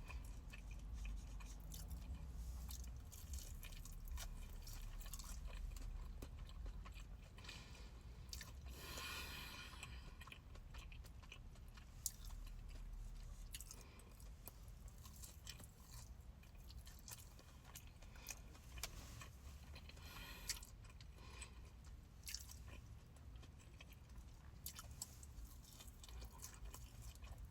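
Faint chewing and mouth smacking of someone eating a deep-fried crab cake by hand, with scattered small clicks and smacks.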